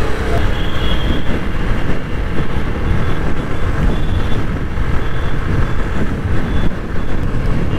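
Motorcycle riding in traffic: wind buffeting the helmet-mounted microphone over the low rumble of the bike's engine, steady throughout.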